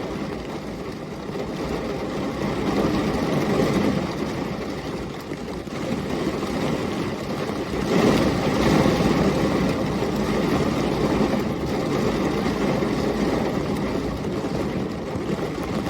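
Steady low rumbling engine noise that swells louder at times, most of all about eight seconds in.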